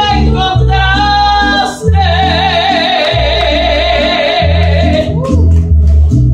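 A woman singing a mariachi-style song into a microphone over a recorded backing track with steady bass notes, holding one long note with wide vibrato from about two to five seconds in.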